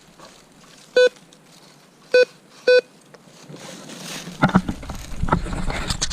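Metal detector giving three short beeps, its signal for metal in the ground. From about halfway there is rustling and scraping in leaf litter and rocks, loudest near the end.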